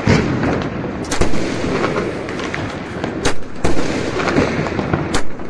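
Firecrackers going off in rapid succession: a dense, continuous crackle broken by several louder, sharp bangs.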